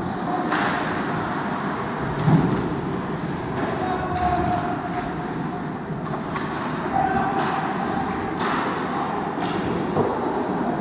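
Ice hockey game noise: a steady wash of skating and rink sound with sharp stick-and-puck clacks through it, and a heavy thud about two seconds in.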